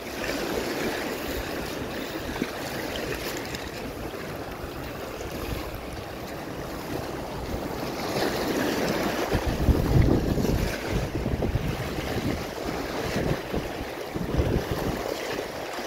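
Shallow sea waves washing and fizzing over a rocky reef, with wind buffeting the microphone, gusting strongest about ten seconds in.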